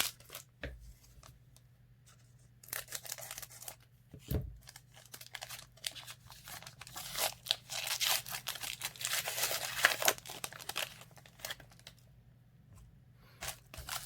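A trading card pack's wrapper being torn open and crinkled, in several uneven stretches of tearing and rustling, loudest past the middle, with a couple of light knocks.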